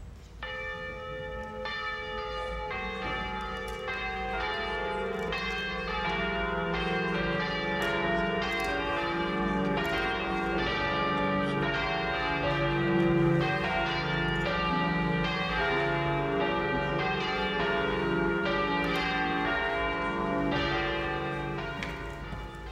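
Church bells ringing before the worship service begins, many strokes overlapping and ringing on into one another, dying away just before the end.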